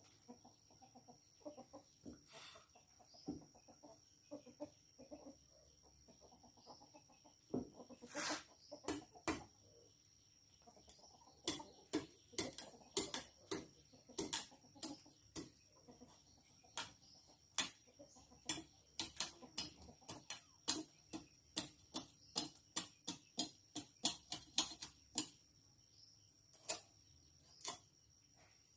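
Kitchen knife scraping and chopping the skin off a large gourd in a run of quick sharp strokes, one to three a second, thickest in the middle and easing off near the end. A faint steady high tone runs behind.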